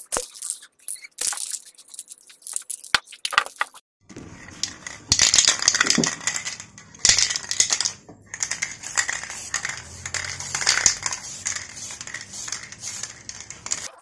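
Nearly empty aerosol can of black spray paint hissing in uneven spurts, with a brief stop about halfway through. It is preceded by scattered clicking rattles, which are typical of the mixing ball being shaken inside the can.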